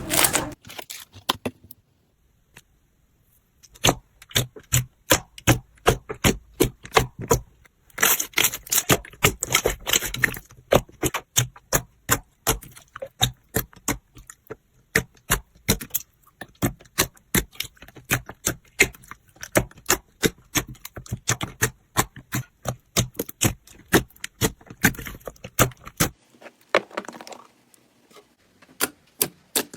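Slime being squeezed and pressed by hand, giving a quick series of sharp clicking, crackling pops, with a short pause a couple of seconds in.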